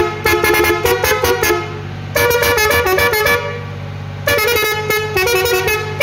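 Tractor-fitted musical air horn playing a quick tune of rapidly changing notes in three bursts, over a steady low hum.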